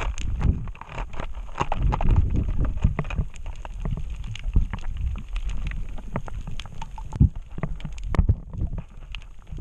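Underwater sound picked up by a camera in its housing: a constant muffled water rumble with many sharp crackling clicks scattered through it.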